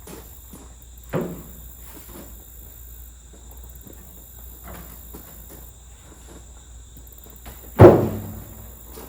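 Footsteps and light knocks, with a sharp knock about a second in and a single loud, heavy thud with a short ringing tail near the end.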